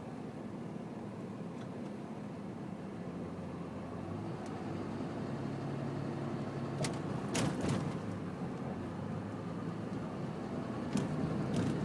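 Car driving along a highway, steady engine and road hum heard from inside the cabin, the engine pitch stepping up a little partway through. A few sharp clicks or knocks about seven seconds in and again near the end.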